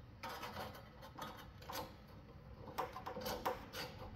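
Faint, irregular metallic clicks and light scraping as a stainless steel heat-wave plate is slid and nudged into place on a Sear Mate grill-grate frame.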